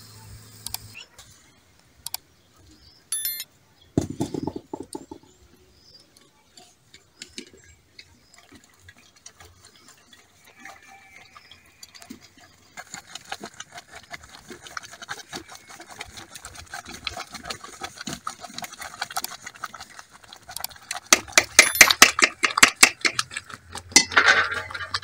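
Wooden cooking stick stirring and scraping thick corn-flour porridge (ugali) in an aluminium pot, in rapid repeated strokes that grow louder over the last few seconds. Scattered clinks and knocks come before the stirring.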